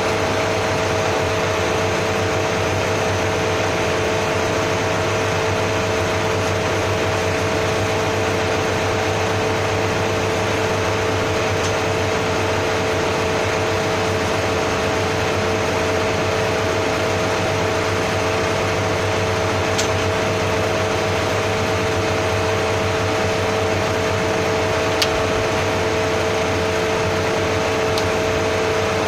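Steady hum and whir of running machinery, even throughout, with two steady tones in it. A few faint light clicks come about twenty, twenty-five and twenty-eight seconds in.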